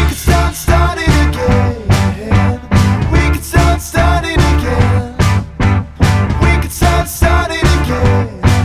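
Rock song with drums, bass, guitar and bending melodic lines, at a steady beat of about two strong hits a second.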